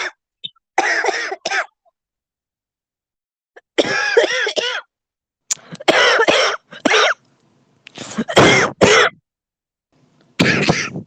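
A person coughing in about five bouts, each of one to several quick coughs, with short pauses between them. It is a smoker's cough.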